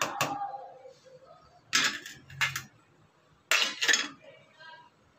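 A spoon clinking and scraping against a hammered metal pot while stirring milk and rice for kheer. The clinks come in a few quick groups, the first with a short metallic ring.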